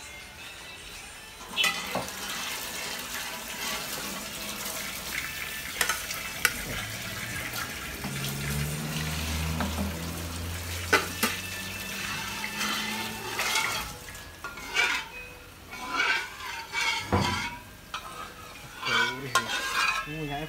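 Beef soto broth sizzling and bubbling in a black iron pan on a gas stove, with a metal spoon clinking and scraping against the pan. The clinks come singly at first, then in quick bunches over the last several seconds as the broth is stirred and scooped.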